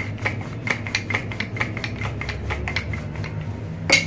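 Wooden rolling pin rolled back and forth over paratha dough on a stone countertop, giving light rubbing clicks about four times a second, with one sharper knock near the end.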